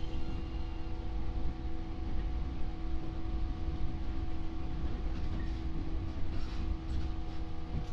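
A 415 series electric train standing still, its on-board equipment giving a steady hum with several fixed tones over a low rumble, heard from inside the car with its doors open. A few faint clicks and knocks come in the last couple of seconds.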